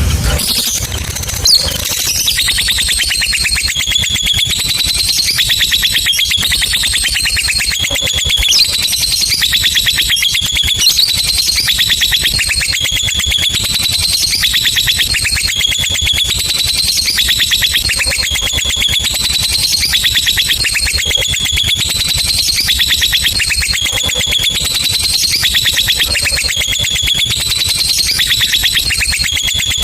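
Lovebird singing a long ngekek: an unbroken, rapid, high-pitched chattering trill that repeats a pattern of short rising and falling notes.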